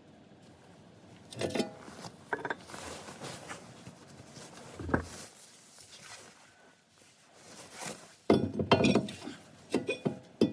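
Metal tools and brake parts clinking and clanking as they are handled, in scattered groups of sharp knocks that come thicker and louder near the end.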